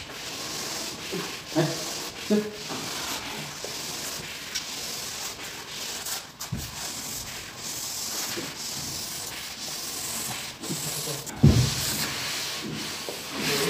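Steady rubbing and scraping as vinyl wallpaper is swept flat against the wall with hands and a wallpaper smoother. There are a few dull thumps, the loudest near the end.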